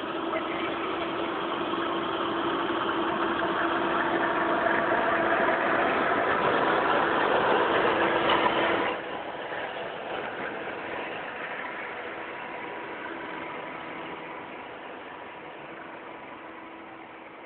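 Heavy-haul semi trucks pulling an oversize load pass close by, their diesel engines growing louder to a peak about eight seconds in, then dropping off suddenly. The long multi-axle trailer follows with a fading rumble.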